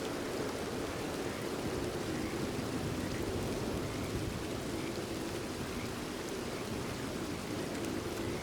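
Steady rain falling, with frogs calling in short repeated calls.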